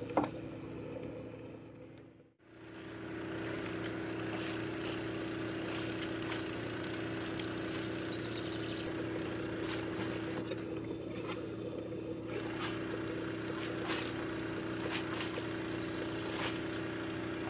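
A steady motor hum with a low drone, cut off briefly about two seconds in, with scattered light clicks and taps over it.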